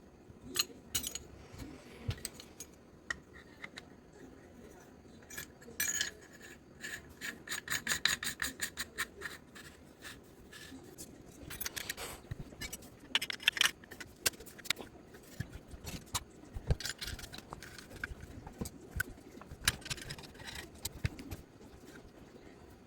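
Metal airsoft rifle parts being handled: irregular clicks, rattles and scraping, in busy clusters about a quarter and again halfway through.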